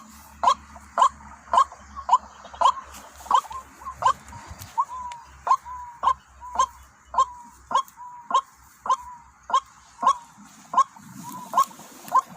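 White-breasted waterhen calling: a steady run of short, evenly spaced notes, just under two a second.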